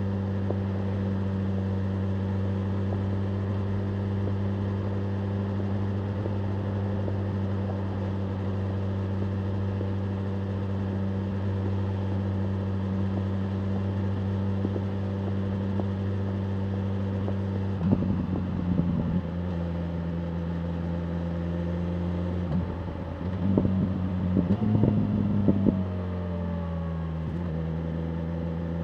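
BMW M1000R Competition's inline-four engine running at a steady pitch while riding. About 18 s in, and again over a few seconds near the end, the note breaks up with brief loud spikes and drops to a lower pitch each time.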